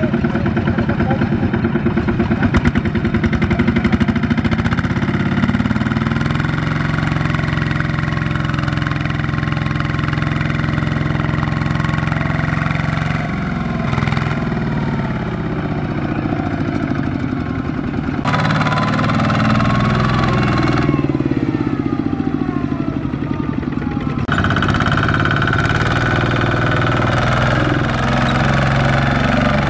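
Single-cylinder diesel engine of a two-wheel walking tractor (Kubota ZT155 type) chugging under load while hauling a loaded trailer through deep mud. Its pitch rises and falls as the throttle changes, and its tone shifts abruptly several times.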